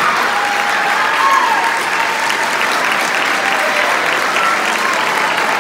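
Audience applauding steadily and loudly.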